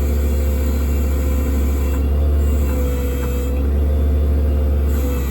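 6.8-litre V10 engine of a Ford F550 running steadily with the PTO engaged, driving the hydraulic pump for the service crane: a steady low rumble with a faint steady whine over it.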